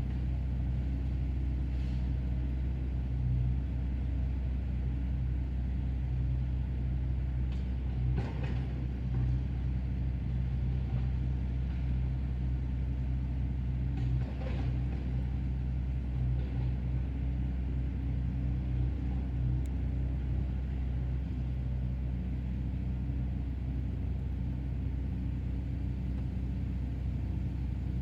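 Excavator's diesel engine running with a steady low rumble, with a couple of brief knocks partway through.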